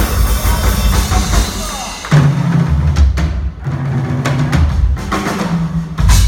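Live instrumental jazz-rock band playing, with drum kit and bass guitar to the fore under cymbal wash. The full band hits a heavy accent about two seconds in and another near the end.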